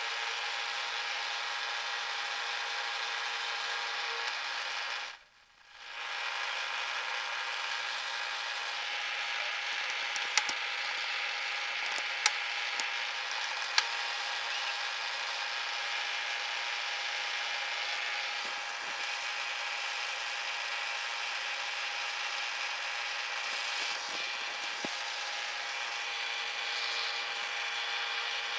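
Milling machine running, its cutter machining a metal holder part with a steady whir and hum. The sound drops out briefly about five seconds in, and three sharp ticks come between about ten and fourteen seconds in.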